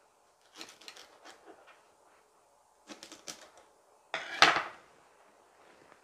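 Hands placing chicory leaves on a pie: light rustles and clicks in three short clusters, the sharpest clatter about four and a half seconds in.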